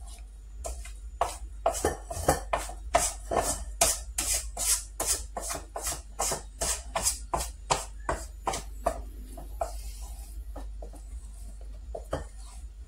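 A spoon scraping around a stainless steel mixing bowl as flour is folded into thick cake batter, at about three strokes a second. After about nine seconds the strokes turn fainter and sparser.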